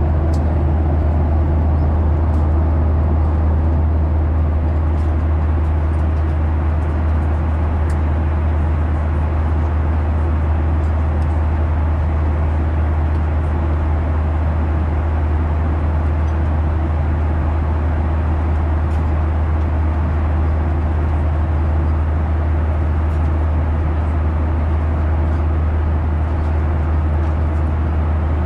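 Steady drone of an airliner cabin in flight: engine and airflow noise with a strong low hum, unchanging throughout.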